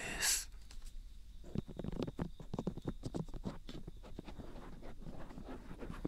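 Fingers rubbing, tapping and scratching the ears of a binaural dummy-head microphone: a dense run of irregular close-up rustles and clicks that starts about a second and a half in, after a brief breathy hiss at the start.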